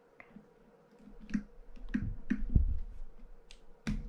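Light clicks and taps of a screwdriver against a fishing reel's metal handle as the handle set screw is worked loose. One louder knock with a dull thud comes about two and a half seconds in, and a sharp click near the end.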